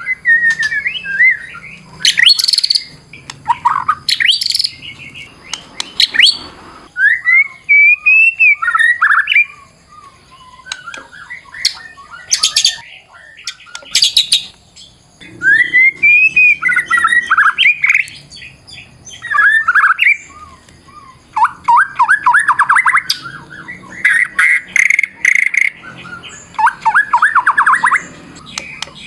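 White-rumped shama (murai batu) singing a varied song. Whistled phrases rise and fall, rapid trills come in the second half, and harsh scratchy notes are scattered between them.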